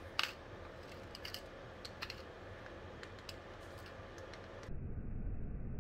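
Black pepper being ground from a pepper mill over beaten eggs, an irregular run of small crunching clicks. About 4.7 s in it cuts off abruptly into a louder, dull rumbling noise.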